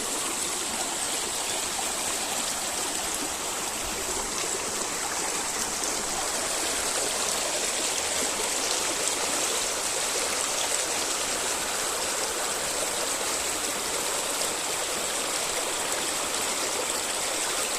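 Small river flowing, a steady rushing and burbling of water.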